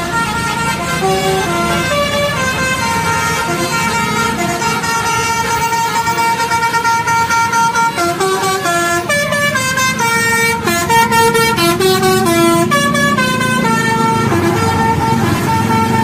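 A bus's telolet multi-tone musical air horn plays a melody of stepped notes, with a faster, busier run of notes about eight to thirteen seconds in. A bus engine and traffic rumble underneath.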